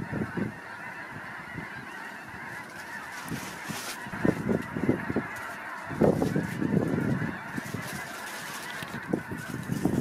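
A large flock of snow geese calling: a dense, continuous chorus of many honking voices, with nearer individual calls rising out of it now and then.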